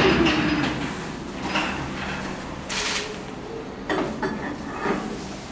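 A lion's deep growl fading out behind steel cage bars, followed by a few scattered knocks and rattles from the metal cage fittings.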